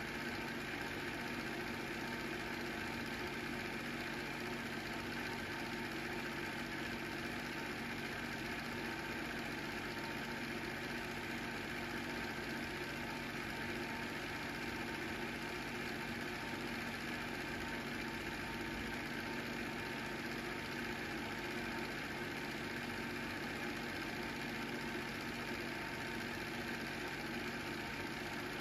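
Film projector running steadily as home-movie footage is shown, a continuous mechanical running noise with no changes.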